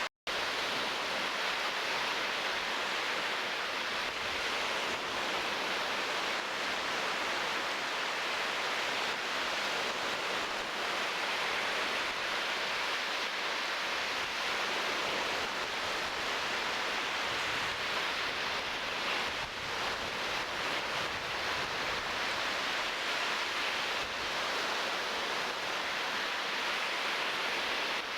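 Steady, even rush of surf along the shore, with no bird calls standing out. The sound cuts out for a moment just after the start.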